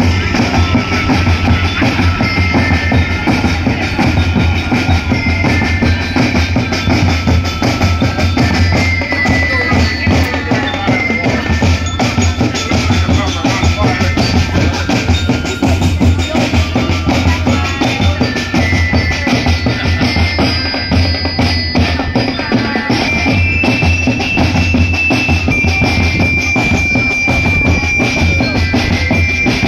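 Drum band playing a steady, continuous beat on large bass drums and other percussion.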